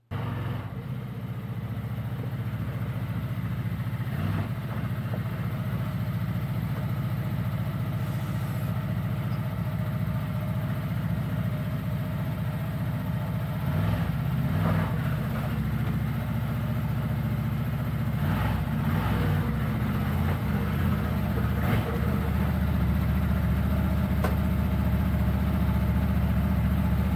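CFmoto CForce 1000 ATV's V-twin engine running steadily at low revs, with a couple of brief changes in engine note about halfway through.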